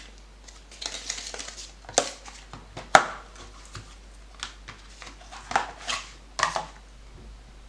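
Handling noise: scattered sharp clicks and knocks, loudest about 2 and 3 seconds in and again near 5.6 and 6.4 seconds, with a brief rustle about a second in, as small items are picked up and set down.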